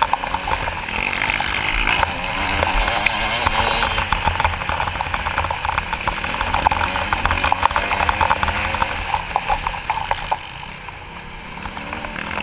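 Motocross bike engine running hard under race throttle, heard from a helmet camera with wind buffeting the microphone. The engine goes quieter for a couple of seconds near the end, then picks up again.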